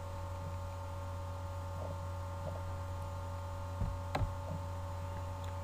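Steady low electrical hum with faint steady higher tones, in a pause between words; a soft thump and a short click about four seconds in.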